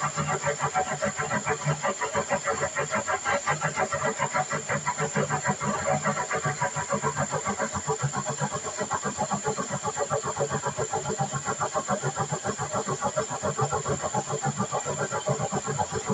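An engine running steadily with a fast, even, pulsing beat and a thin high whine over it.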